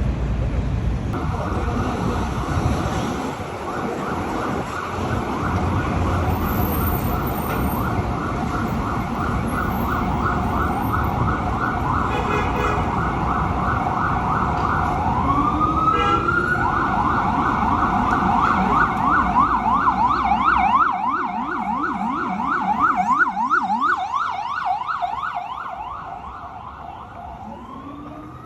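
Emergency vehicle siren in a fast yelp, broken a little past halfway by a rising wail before the yelp resumes, over low street traffic noise. The siren fades over the last few seconds as another rising wail begins near the end.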